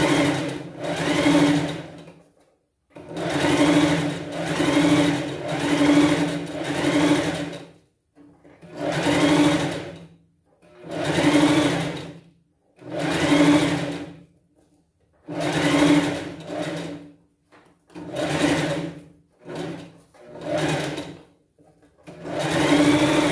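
Sewing machine stitching a thin ric-rac trim onto a sleeve, run in short bursts of a second or two that speed up and slow down, with brief stops between them as the trim is guided.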